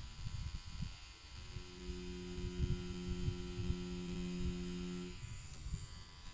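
Pen-style tattoo machine running with a steady hum as its needle traces lines into synthetic practice skin, starting about one and a half seconds in and stopping about five seconds in. Low handling rumble and a few soft knocks underneath.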